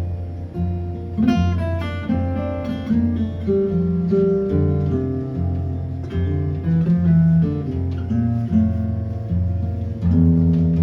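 Acoustic guitar strumming with a picked melody line over steady bass notes, an instrumental intro to a country-folk song.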